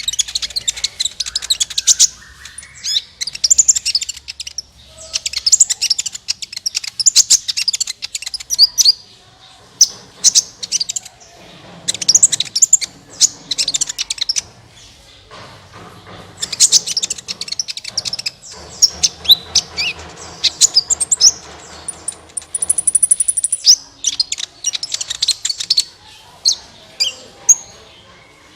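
Sunbird song: rapid, high-pitched chirps and twittering trills in repeated bursts, a few seconds each, with short gaps between them.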